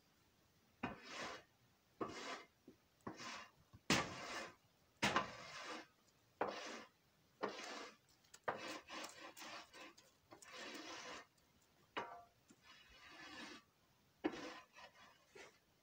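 Concrete placing tool (come-along) scraping and pushing donkey manure across a flat stall floor: a series of short scrapes about once a second, with a few longer drags.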